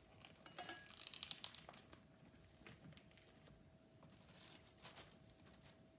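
Faint crinkling and rustling of packaging being handled, with a short run of rapid crackles about a second in, then a few soft scattered clicks.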